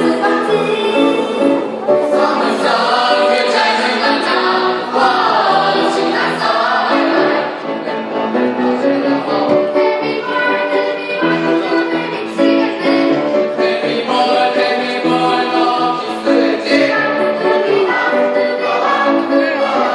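A choir singing in parts, with held chords and moving melody lines.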